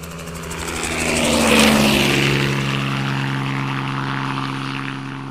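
Drone of an aircraft passing over, swelling to its loudest about a second and a half in, then slowly fading.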